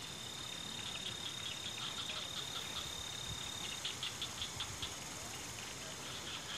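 Night insects chirping in a fast, even rhythm at a high pitch, with one steady high trill that stops a little before four seconds in. Underneath is a light, steady patter of rain.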